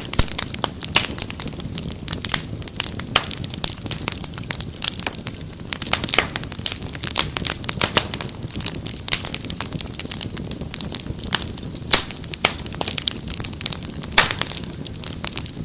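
Wood fire crackling, with sharp irregular pops and snaps over a steady low rumble of flame.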